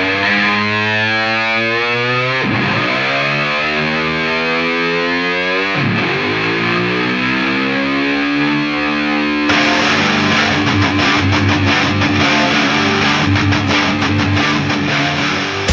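Rock music led by a distorted electric guitar. Long held notes slide down in pitch and swoop back up three times, then the full band with drums comes in about two-thirds of the way through.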